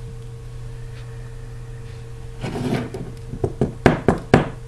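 A disassembled iPhone 4S being handled on a wooden work surface, over a steady low hum. A brief scrape comes about halfway through, then a quick series of about five sharp taps and clicks of the phone against the board near the end.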